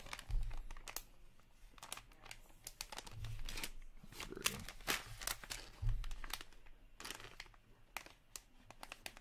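Glossy plastic card-pack pouch crinkling as it is handled, with short scattered crackles and three low thuds of handling against the table or microphone.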